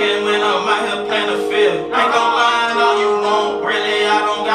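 A hip-hop song playing: a man sings melodically over sustained synth chords and a beat.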